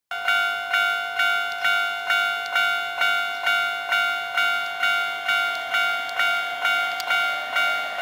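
Japanese railway level-crossing warning bell ringing steadily, about two strikes a second, warning that a train is approaching.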